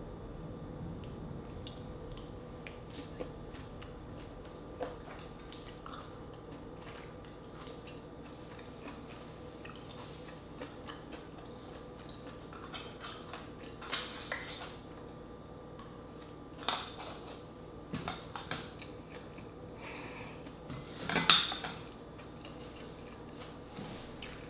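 A person chewing green-lipped mussels and rice, with scattered light clicks and knocks of mussel shells and a wooden spoon against dishes; the loudest clatter comes near the end. A faint steady hum runs underneath.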